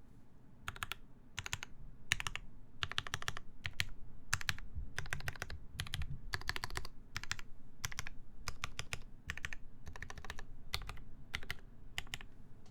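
Typing on a Vulcan Majapahit ergonomic mechanical keyboard with lubed Gateron Ink switches on a full brass plate and GMK keycaps. The keystrokes come in quick word-length runs with short pauses and stop near the end.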